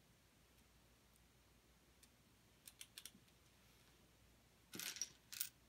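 Plastic LEGO pieces being handled: a few faint clicks about halfway through, then a short clatter of pieces near the end.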